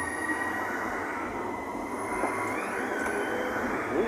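Hitachi Class 395 high-speed electric train pulling out of the platform, with an unusual, rather high-pitched whine that rises in pitch a little past halfway through over the steady rumble of the passing carriages.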